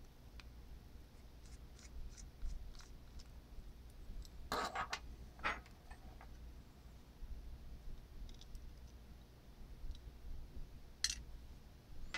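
Faint small clicks and ticks of a precision Torx T2 screwdriver backing a tiny screw out of a smartwatch's logic board. A little past the middle comes a short clatter as the metal screwdriver is set down on a wooden desk, and near the end one sharp click.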